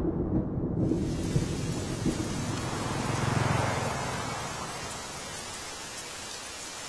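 Heavy rain pouring, with thunder rumbling. A low rumble runs into the first second as the rain hiss comes in, swells again about three seconds in, then dies away, leaving steady rain.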